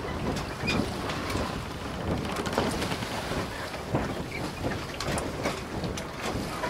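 Wind buffeting the microphone over the rush of water as a Prindle 19 catamaran sails fast through chop, with irregular splashes and slaps of spray and waves against the hulls.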